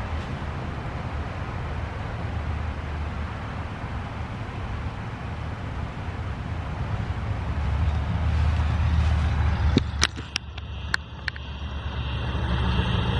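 Road traffic: a steady rumble of passing vehicles that grows louder about two-thirds of the way through, followed by a few sharp clicks near the end.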